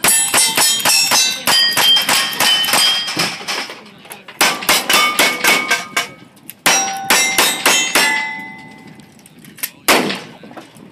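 A fast string of lever-action rifle shots, each followed by the ringing clang of a hit steel target. After a short pause come two more quick strings of shots, also with steel ringing. A single heavier shot comes near the end.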